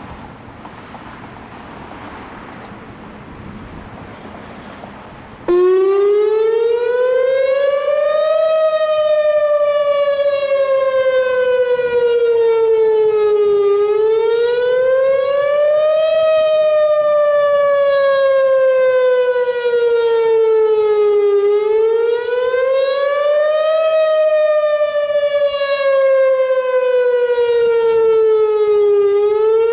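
Whelen WPS-2910 electronic outdoor warning siren sounding a wail in a routine test. It comes on suddenly about five seconds in, after wind noise on the microphone, then rises quickly and falls more slowly in pitch, repeating about every eight seconds.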